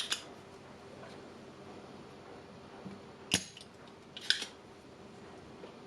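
Two short, sharp clicks of a small hand tool working at the battery's solder joint, about a second apart, over a faint steady hum.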